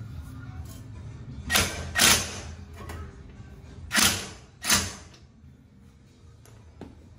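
Red cordless power tool running in four short bursts, in two pairs about two seconds apart, driving in the bolts of a replacement front wheel bearing on a Toyota Highlander's steering knuckle.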